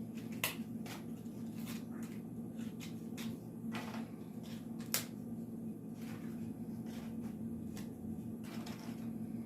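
Leftover hard taco shells being broken up and handled, a scatter of sharp crisp cracks and clicks with two louder snaps, about half a second and five seconds in. A steady low hum runs underneath.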